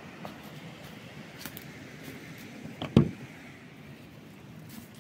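A single sharp knock about three seconds in, over a steady low rushing noise.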